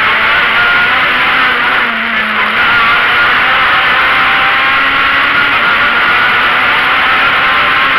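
Rally car at speed, heard from inside the cabin: the engine runs hard with a dense rush of road and wind noise, its pitch rising and falling a little as the driver works the throttle.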